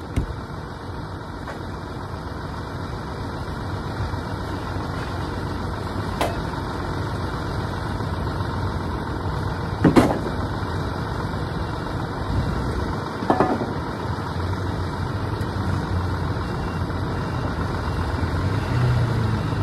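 An engine running steadily at idle, with a few sharp metal clanks over it, the loudest about halfway through.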